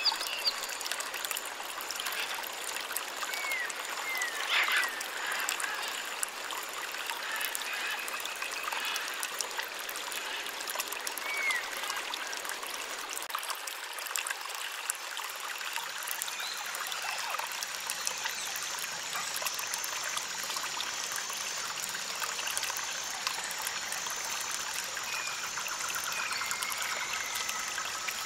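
Water running and trickling steadily, with a few short, faint chirps over it.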